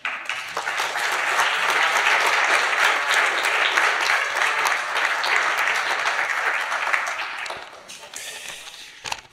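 Audience applauding, fading out about eight seconds in.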